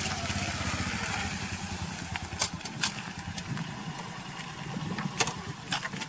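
A small commuter motorcycle's engine running with a low, even pulse as the bike rides up, loudest in the first second and then a little quieter. A few sharp clicks stand out over it, the loudest about two and a half and five seconds in.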